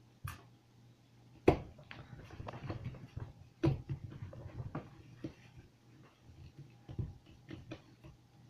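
Irregular clicks and knocks of Play-Doh and plastic modelling tools being handled and pressed on a table, the sharpest knock about a second and a half in.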